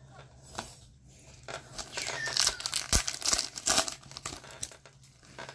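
A sports card pack's wrapper being torn open and crinkled by gloved hands, a dense run of crackles loudest over a couple of seconds in the middle, then the freshly opened cards being handled.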